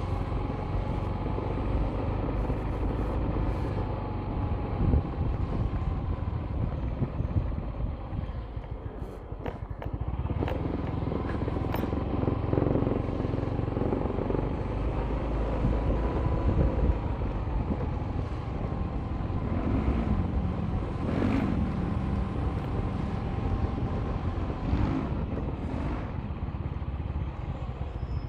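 Motor vehicle driving along a concrete road: a steady engine hum with a faintly wavering whine, road rumble and wind noise, dipping briefly about a third of the way through.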